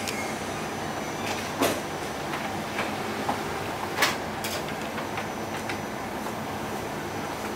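Xerox C7030 colour multifunction printer running a print job on envelopes fed from the bypass tray: a steady mechanical whir with a few sharp clicks, about one and a half and four seconds in.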